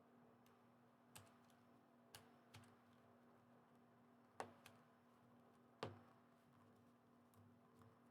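Faint, sparse clicks and taps of building-set pieces being handled and pressed together, about six in all, the loudest about four and a half and six seconds in.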